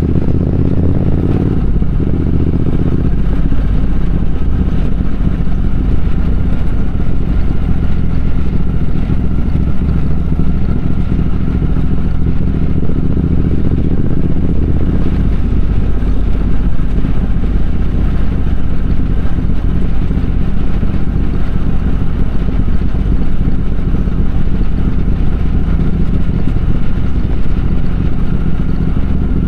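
Triumph Speed Twin 1200's parallel-twin engine running while riding. Its revs rise for about the first two seconds and drop sharply, then it holds a steady run.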